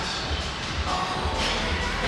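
Background music with a bass beat.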